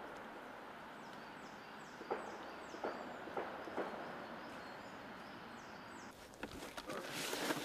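Footsteps on dry leaf litter in woodland: a few sharp twig snaps a little past two seconds in and about three and four seconds in, and louder rustling near the end. A small bird sings runs of short, high, falling notes.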